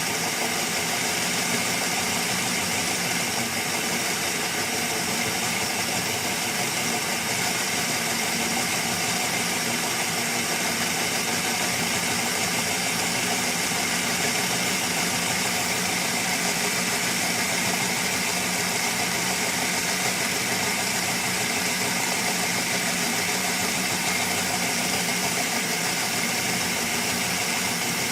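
Steady engine idling sound from a model locomotive's DCC sound decoder, unchanging throughout.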